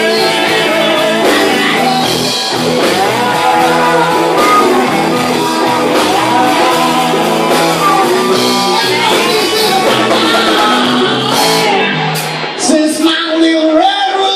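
Live blues band playing loud amplified music: Stratocaster and Les Paul electric guitars over drums. The sound thins out briefly near the end before the full band comes back.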